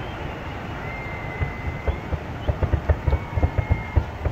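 Distant fireworks going off: a quickening run of low booms and pops that starts about a second and a half in and grows denser, over a steady background of crowd and street noise.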